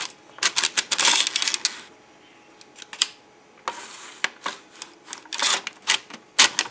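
Legare-style 3D-printed circular sock knitting machine being cranked: a rapid clatter of the needles clicking up and down through the cams as the carriage goes round. The clatter thins out for about a second and a half in the middle.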